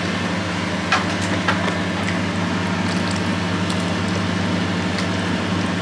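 Steady low hum of a running motor, with a couple of faint clicks about a second in.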